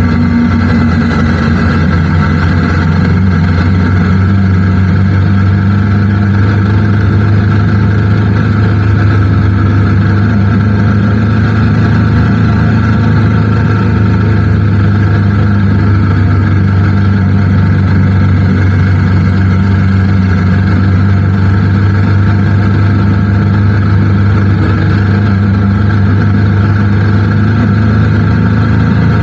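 Motorcycle engine running steadily at an even speed, a constant low drone whose pitch shifts only slightly.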